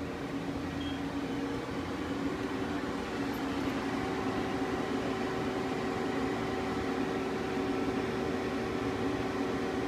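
Kia KiaTurn 21 CNC lathe running under power, a steady mechanical hum with several steady tones that grow a little stronger about four seconds in.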